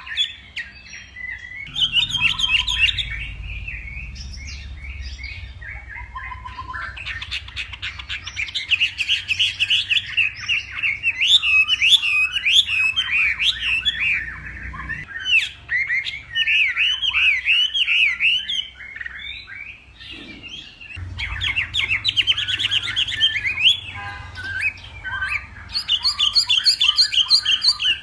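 Chinese hwamei (họa mi) singing a long, varied song of rapid trills and quick runs of repeated whistled notes, with a couple of short breaks.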